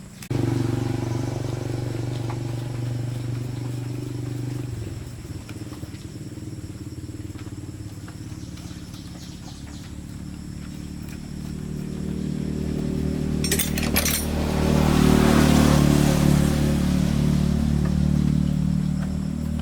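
YLHX 1500 generator's engine starting abruptly and running steadily. It drops to a lower pitch a few seconds in, then speeds up and grows louder in the second half, with a few sharp clicks just before it peaks.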